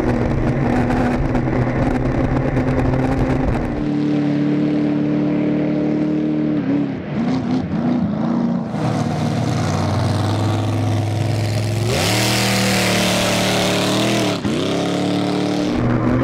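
Supercharged 8-litre big-block Chevy V8 boat engine running hard at speed. Its steady note wavers in pitch around the middle, then rises sharply as it accelerates, twice near the end, with a rushing noise of spray and wind over it.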